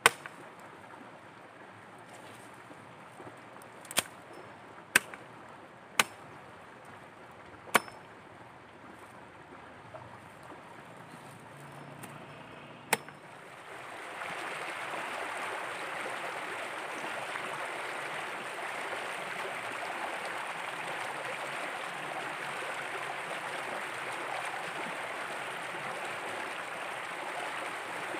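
Hatchet chopping dry branches: about six sharp, separate strikes, most of them a second or so apart. About halfway through, this gives way to the steady rush of a shallow stream running over rocks.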